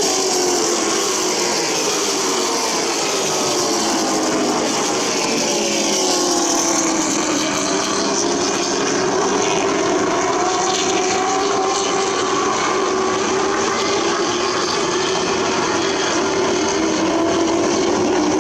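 Several stock car racing engines running hard at once around a short oval track, a steady, loud drone whose pitches rise and fall as the cars pass and go around the turns.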